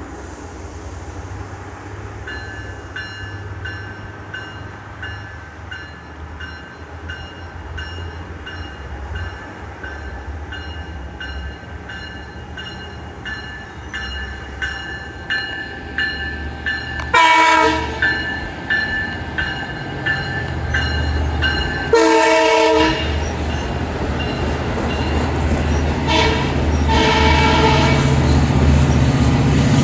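Diesel passenger train approaching, its low rumble growing steadily louder, while a grade-crossing bell rings at about two strokes a second. The locomotive sounds two short horn blasts about five seconds apart as it nears.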